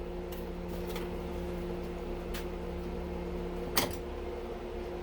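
Small parts being handled: a few faint clicks and one sharper tap about four seconds in, over a steady low hum.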